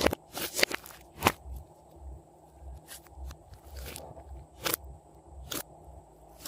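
Glossy slime being worked by hand, giving sharp sticky clicks and crackles. Several come in the first second and a half and two more near the end.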